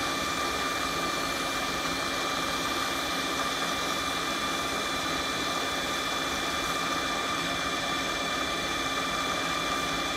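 Bridgeport J-series milling machine running steadily under its 1 hp three-phase motor, with a constant high whine over the drive noise, as the quill power feed carries the spindle down toward its depth-stop collar.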